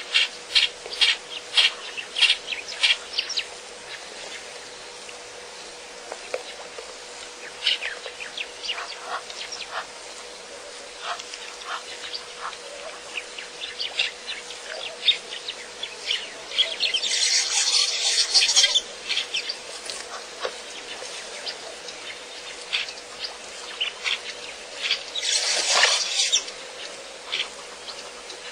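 Waterhole ambience: many short, sharp chirps and clicks scattered irregularly, with two hissing rushes of a second or two near the middle and near the end. A faint steady hum runs underneath.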